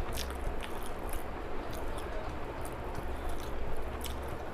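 A person chewing a mouthful of food, with small, wet mouth clicks and squishes, over a low, steady hum.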